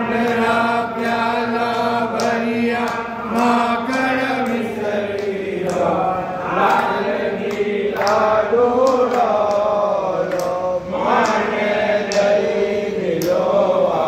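A group of devotees chanting the Hindu aarti in unison, holding long drawn-out notes, with a steady beat of sharp metallic-sounding strikes keeping time.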